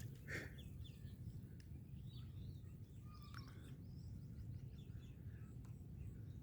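Faint outdoor ambience: a steady low rumble with small birds chirping here and there, one call louder than the rest near the start.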